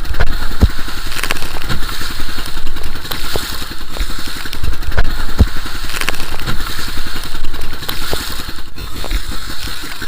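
A small fishing boat's engine running hard through rough sea, with wind noise on the microphone and scattered low thumps throughout.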